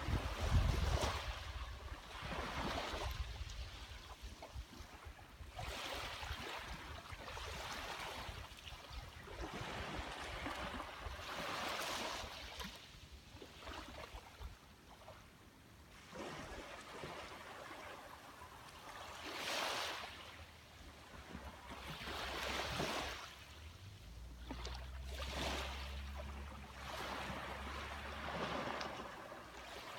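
Small sea waves breaking and washing up a beach, each wash swelling and fading every few seconds. A low steady hum sits underneath for the last few seconds.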